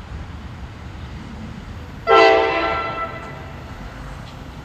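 NJ Transit commuter train's horn sounding one short blast about two seconds in: several tones together that cut in suddenly and fade away over about a second. A low steady rumble lies underneath.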